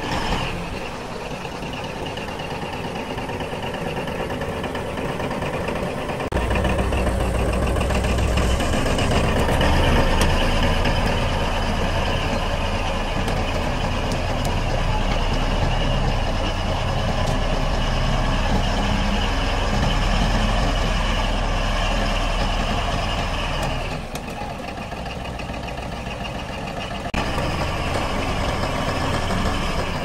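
Komatsu D155A bulldozer's diesel engine running steadily while the machine works its tracks. The sound gets louder and deeper about six seconds in, drops back between about 24 and 27 seconds, then comes back up.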